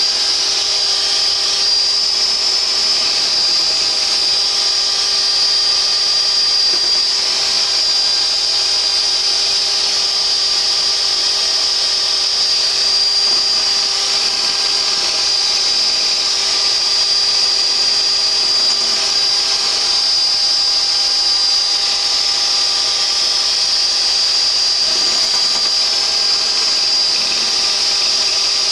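Electric mixer running steadily at high speed, whipping egg whites toward stiff peaks, with a steady high whine over the motor hum.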